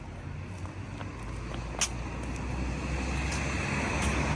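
A motor vehicle approaching: a low engine and road rumble builds from about a second in and grows steadily louder, then cuts off suddenly.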